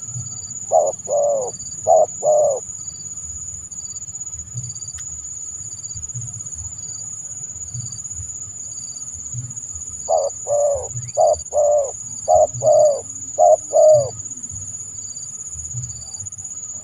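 Spotted dove (tekukur) cooing. A short phrase of four notes comes about a second in, and a longer run of about eight notes from about ten to fourteen seconds in. A steady high-pitched tone runs underneath throughout.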